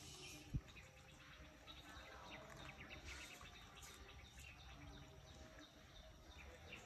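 Near silence: faint outdoor ambience with faint high chirps, and one short low thump about half a second in.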